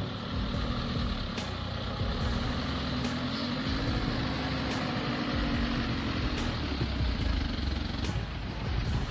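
An engine running steadily, with a slightly wavering pitch over a low rumble.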